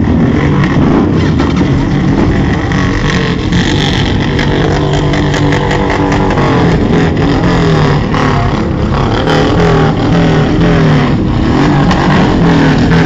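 Motorcycle engines running and revving loudly, a dense steady drone whose pitch shifts up and down.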